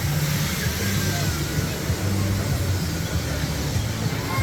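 Amusement-park ambience: background music with a pulsing bass line under a steady rush of outdoor noise.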